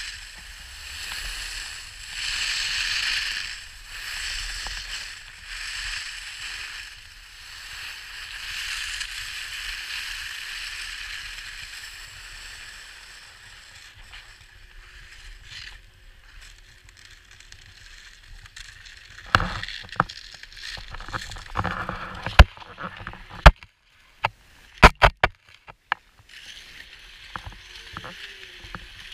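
Skis hissing and scraping over packed snow, swelling and fading with each turn every couple of seconds, then settling to a quiet glide. About two-thirds of the way in, a run of sharp clicks and knocks begins as the skier comes to a stop.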